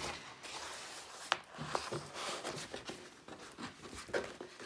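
Rustling and crinkling of a rolled diamond painting canvas as hands unroll it, with a sharp crackle about a second in.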